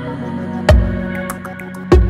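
Background music: held chords over a slow, deep beat that hits about every second and a quarter.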